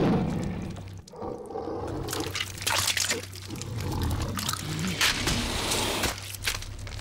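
Film gore sound effects: wet squelching and splashing of flesh being torn and blood spraying, with several sharp wet hits, over a low steady hum.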